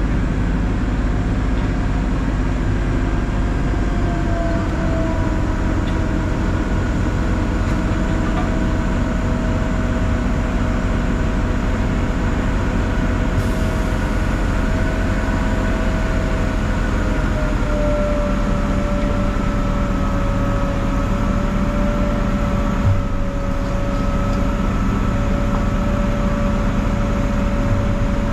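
Mobile crane's diesel engine running steadily, with a whine that slowly drops in pitch.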